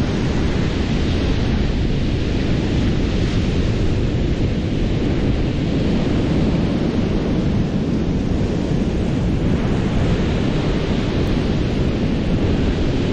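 Ocean surf breaking on a beach, a steady rush of waves with wind buffeting the microphone.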